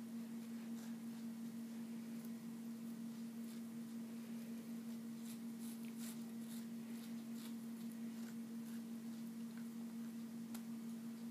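A cat chewing raw bok choy: faint, irregular crunching clicks, thickest about five to seven seconds in, over a steady electrical hum that is the loudest sound.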